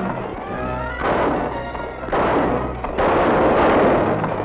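Gunshots in a shoot-out, about four blasts roughly a second apart, each with a long echoing tail, over dramatic background music.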